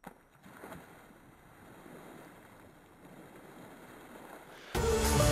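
A person jumping feet-first into a swimming pool: a splash on entry, then a few seconds of water churning and spray falling back. Music comes in loudly near the end.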